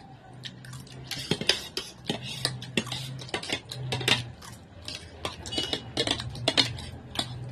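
Metal spoons clinking and scraping against plates as several people scoop up pasta, in quick irregular clicks, over a faint steady low hum.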